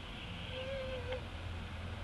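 A baby macaque gives one short, thin crying coo, a steady note lasting just over half a second, ending with a faint click.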